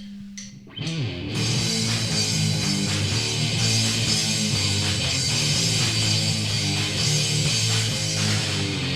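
A rock band kicks into a song about a second in, after a few clicks over a low held tone: distorted electric guitar, bass and drums playing loud and steady with a driving beat, no vocals yet.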